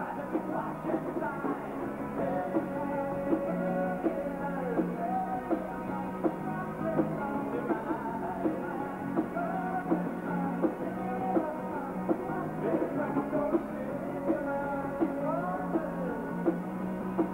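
Live rock band playing: a male singer sings over electric guitar, bass guitar and a drum kit, with drum hits landing at a regular beat.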